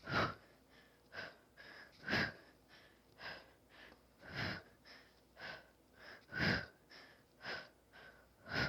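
Hard, rhythmic breathing during bicycle crunches, about one breath a second, every other breath louder, in time with the twisting reps.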